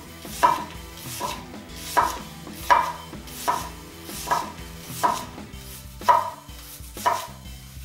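Kitchen knife slicing a red onion into rings on a wooden cutting board: a steady series of sharp knocks as the blade meets the board, about ten of them, a little more than one a second.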